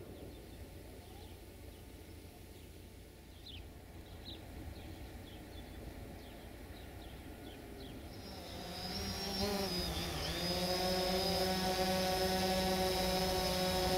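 A diesel train engine comes in, a steady drone of many tones that builds and grows louder from about two-thirds of the way through. Before it, there are only faint short chirps.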